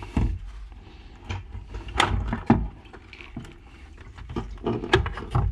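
Honda Civic's plastic fuel pump and sending unit assembly being worked out of the fuel tank by hand, clattering and knocking against the tank opening. Sharp knocks come about two seconds in, again half a second later, and near the end.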